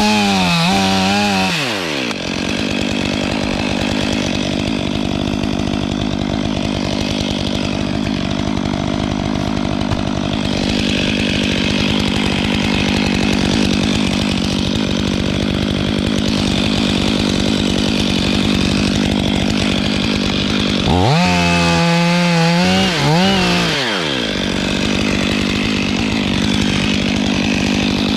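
Stihl 500i fuel-injected two-stroke chainsaw idling steadily. It revs up and back down at the start, again about three-quarters through, and once more just at the end.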